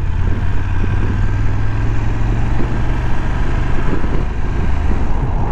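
BMW F850GS motorcycle's parallel-twin engine running steadily at low speed.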